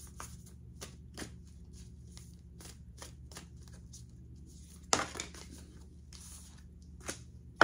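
A deck of oracle cards being shuffled by hand: a run of light, irregular card flicks and slides, with a louder snap about five seconds in and another at the very end.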